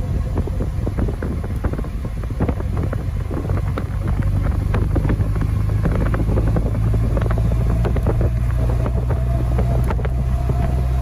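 An engine running steadily with a low hum, with many small clicks and rattles over it; a faint steady whine joins about halfway through.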